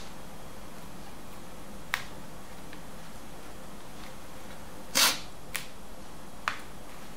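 Plastic speaker grille strip of a Sony VAIO Duo 13 being peeled and pried off its strong adhesive: a few sharp plastic clicks and snaps, the loudest about five seconds in, as the stuck grille and its plastic clips let go.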